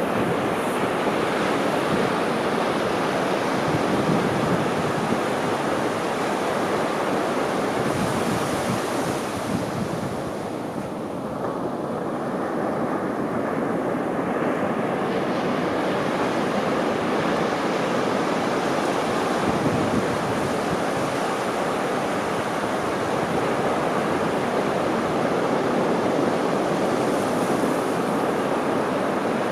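Ocean surf breaking and washing up a sandy beach: a continuous rushing hiss of waves. The hiss thins briefly about ten seconds in, then builds again as new waves break.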